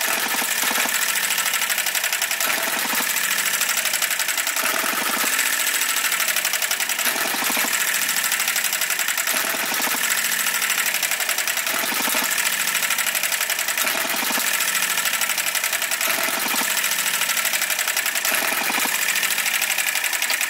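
Enjomor 6cc single-cylinder model hit-and-miss engine running on Zippo lighter fuel. It clatters rapidly, with a surge about every two seconds as the governor lets it fire and then coast in its hit-and-miss cycle.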